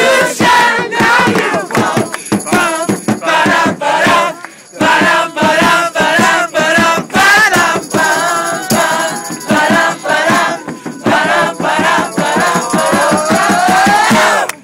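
Punk rock choir singing loudly together in a group, over a fast percussive beat, with a short break about four and a half seconds in.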